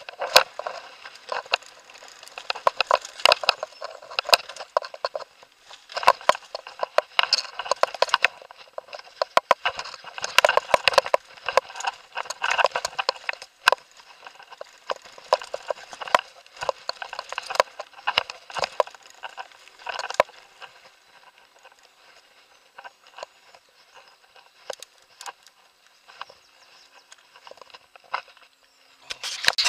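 Irregular clicking and rattling of a helmet-mounted camera and its mount, jolted by a bumpy dirt trail. The clatter is dense for the first twenty seconds, thins out after that, and picks up in a short burst of knocks near the end.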